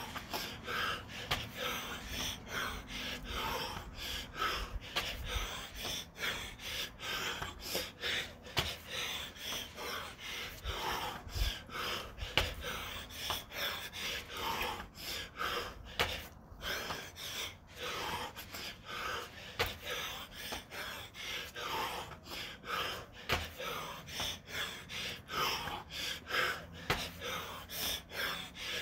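A man breathing hard in quick, rhythmic gasps and pants, worn out from six minutes of nonstop burpees.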